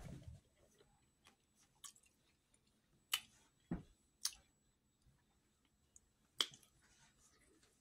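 Close-miked eating sounds from fingers working boiled eggs in a bowl of butter sauce: a few isolated sharp, wet clicks about three, four and six seconds in, with a dull thump between the first two.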